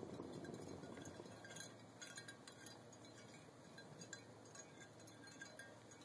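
Near silence, with a faint low rumble fading out in the first second or two and scattered faint small clinks.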